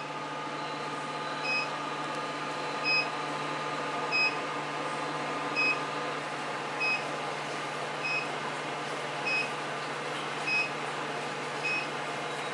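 Laser hair-removal machine giving a short beep about every 1.3 seconds, nine times, as its handpiece fires pulses along the arm, over a steady hum.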